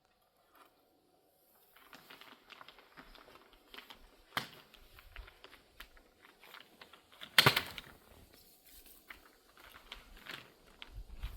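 Greenhouse plastic film being handled, crinkling and crackling in light, irregular clicks, with a sharp click a little past four seconds and a louder knock about seven and a half seconds in.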